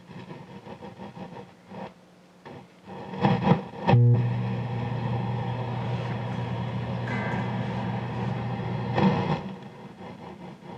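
Electric guitar played through a guitar amplifier with distortion: a few soft picked notes, then strummed chords, one left ringing for about five seconds before another strum and a fade.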